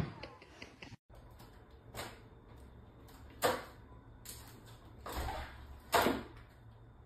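A cat jumping up at a wooden door and hanging on its handle. The door and handle knock and rattle several times, the loudest knocks about halfway through and near the end.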